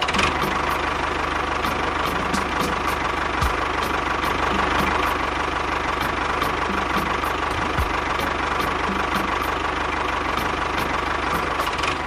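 Tractor-style engine running steadily at idle with a regular knocking beat and a light ticking about three times a second.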